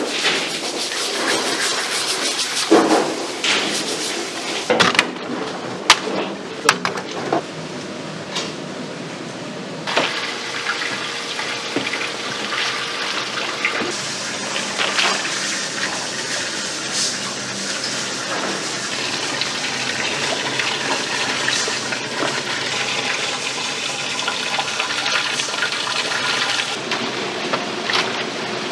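Tap water running and splashing while scallop shells are scrubbed, with sharp knocks of shell on shell and on the steel sink. From about a third of the way in, a steady rush of bubbling, splashing water from aerated live-seafood tanks.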